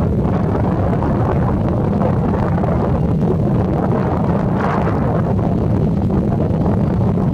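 Airbus A320neo jet engines at low taxi power as the airliner turns on the runway: a steady, loud rumbling hum, mixed with wind buffeting the microphone.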